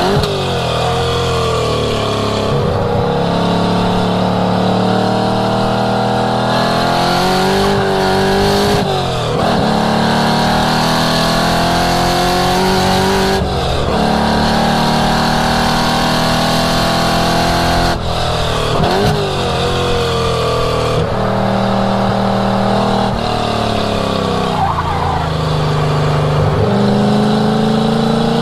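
1967 Ford Mustang's engine driven hard on a race track: its pitch climbs steadily under acceleration, then drops sharply every few seconds at gear changes and lifts for corners.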